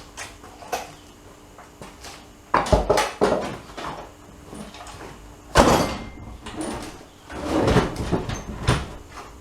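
A small 6 horsepower go-kart engine being lifted and set down on a workbench: a few clunks near three seconds, one heavy thump of the engine landing about five and a half seconds in, then scraping as it is shifted on the bench.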